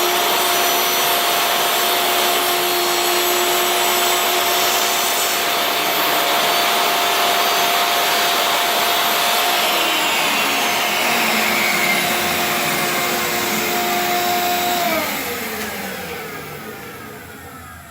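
Table saw running at speed with a steady whine, then switched off about fifteen seconds in, its pitch falling as the motor and blade spin down.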